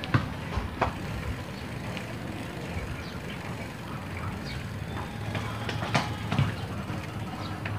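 A bicycle being ridden along a paved street: steady road and wind rumble with a few light clicks and rattles, the loudest about six seconds in.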